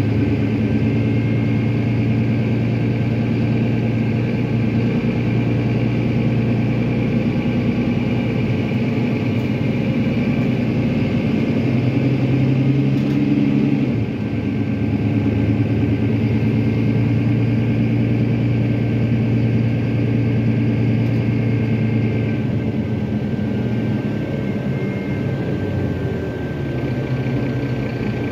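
Mercedes-Benz OM906hLA six-cylinder diesel of a Citaro O530 city bus running, heard from inside the passenger cabin, with a steady high whine over it. The engine note rises about twelve seconds in, then drops back two seconds later with a brief dip in loudness.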